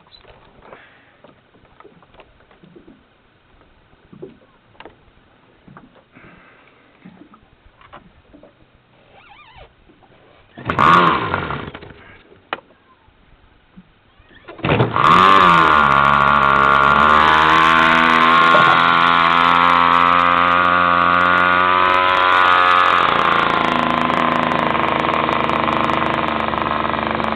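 Small two-stroke model airplane engine being started with an electric starter: a brief burst of cranking about eleven seconds in, then it catches a few seconds later and runs steadily at high speed, wavering a little before settling to a slightly lower steady speed. Before that, only small handling clicks.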